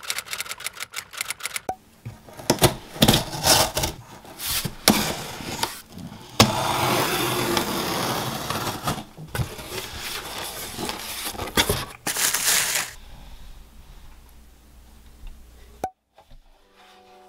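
Rapid typewriter-style key clicks for the first couple of seconds, then a cardboard shipping box being opened: a utility knife slicing through the packing tape in a long scraping rasp, among knocks and rustles of cardboard being handled.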